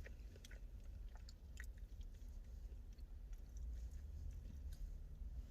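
Close-up chewing of pizza, soft wet mouth sounds with scattered small crackles and clicks.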